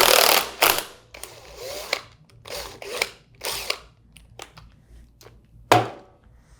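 Impact wrench spinning the impeller nut off a Waukesha 200 Series centrifugal pump shaft, in one loud burst about a second long followed by three shorter bursts. A sharp clack comes near the end.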